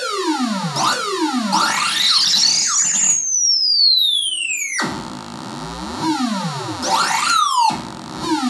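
Hand-built circuit-bent analog noise synth sweeping through buzzy electronic tones as its knobs are turned: a run of overlapping glides falling and rising in pitch, with one long high whistle sliding down in the middle and quicker falling sweeps near the end.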